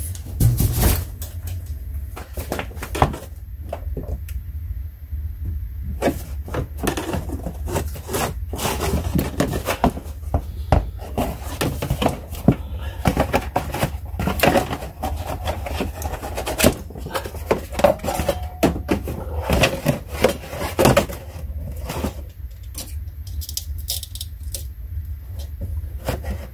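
Irregular clicks, knocks and scrapes of a car's plastic wheel-well liner being bent back and handled by hand.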